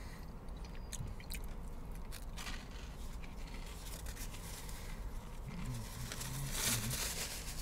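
Paper napkin being unfolded and handled: soft rustling and crinkling with a few light clicks, the loudest rustle near the end.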